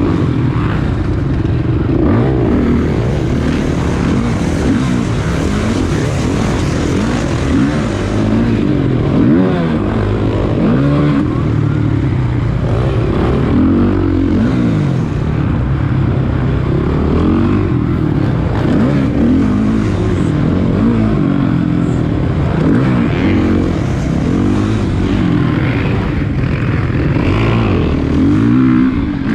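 Several motocross dirt bike engines racing together, revving up and down again and again as the riders work the throttle and shift. Their pitches overlap and rise and fall over one another at a steady loud level.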